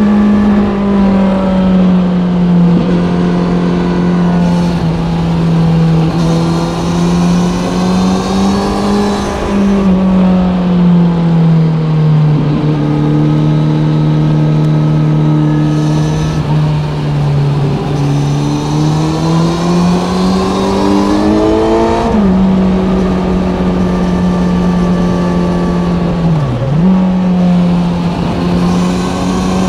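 Kawasaki Z900's inline-four engine through an Ixil SX1 full exhaust system, riding through curves. The engine speed falls off about ten seconds in, climbs again, steps suddenly about 22 seconds in, and dips briefly near the end.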